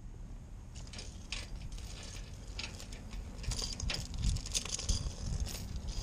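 Metal clinking and rattling as a trailer's steel safety chain and hitch hardware are handled, a run of short clinks that comes thickest around the middle.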